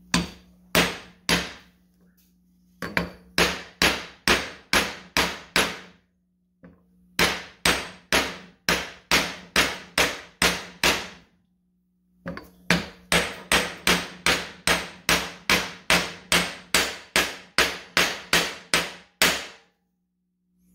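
Ball-peen hammer striking a large steel socket used as a driver, tapping a new grease seal into a wheel hub until it seats flush. The sharp metal-on-metal strikes come about two to three a second in four runs with short pauses between; the last and longest run stops near the end.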